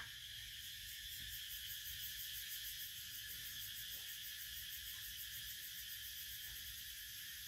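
Faint, steady high-pitched chirring, typical of insects, over a low rumble, with a few soft ticks.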